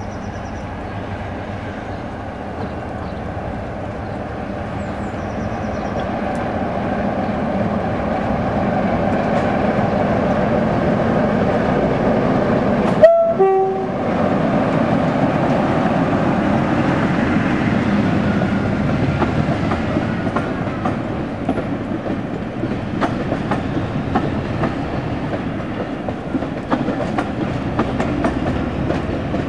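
Class 55 Deltic diesel locomotive hauling a passenger train, its engine growing louder as it approaches and passes. About halfway through comes a brief two-tone horn blast. After that the coaches roll past with a clickety-clack of wheels over rail joints.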